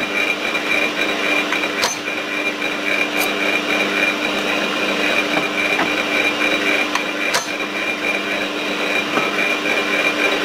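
Milling machine spindle running with a steady hum and whine while a chamfer tool cuts the edges of bolt holes in an aluminum part. A few sharp clicks come through, about two, three and seven seconds in.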